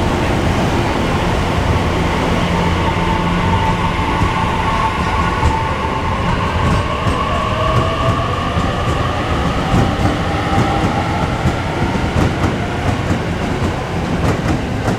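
Electric multiple-unit train running at the platform, its traction inverter and motors giving a whine that slowly rises in pitch over a steady low hum, with short wheel clicks near the end.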